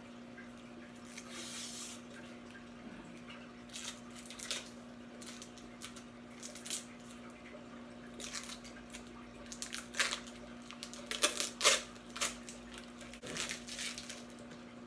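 Scattered rustles and clicks as a small accessory and its packaging are handled, loudest around 10 to 12 seconds in. Under them runs a steady hum with a faint trickle of water from an aquarium.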